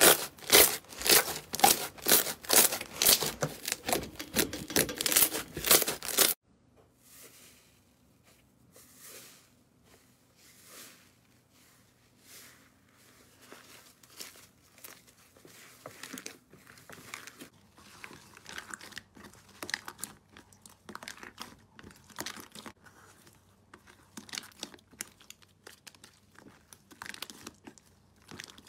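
Hands stretching and pulling slime, giving loud crackling pops several times a second. About six seconds in it cuts to thick slime being kneaded and pulled in a plastic tub: quieter squishing crackles that grow busier toward the end.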